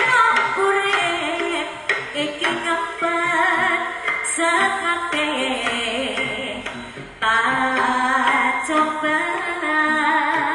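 Jaranan accompaniment music played live: a wavering sung melody over the ensemble's instruments and drums, dipping briefly about seven seconds in, then coming straight back in.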